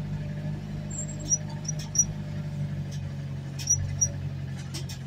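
A vehicle's engine running steadily, heard from inside the cabin while driving, with a few short, high chirps or squeaks and light clicks over it.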